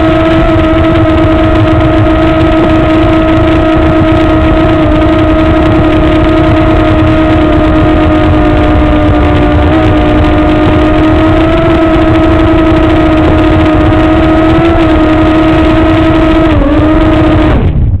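Parrot minidrone quadcopter's small electric motors and propellers whining at a steady pitch in flight. Near the end the pitch dips as it sets down on the floor, then the motors cut off suddenly.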